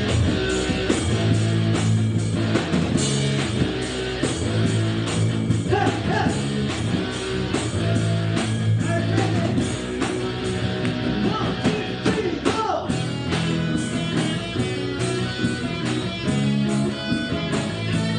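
A band playing a worship song's intro: guitars over bass and drums with a steady beat, and a few bending lead lines.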